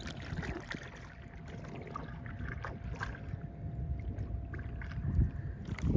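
Kayak paddle strokes dipping and splashing in the water, with small drips and a low rumble.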